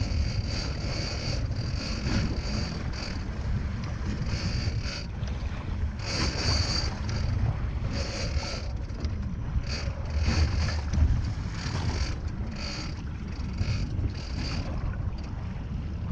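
Steady low rumble of the boat's motor, wind and sea, overlaid by repeated short whirring bursts from a big-game fishing reel, about one every second or so, as line is worked during a fight with a large bluefin tuna.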